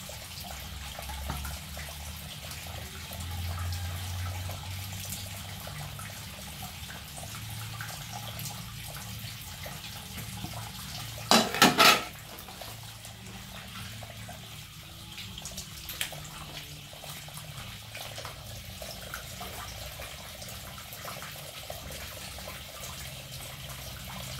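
Tap water running steadily into a sink as plates are washed by hand, with faint clinks and a brief loud clatter about halfway through.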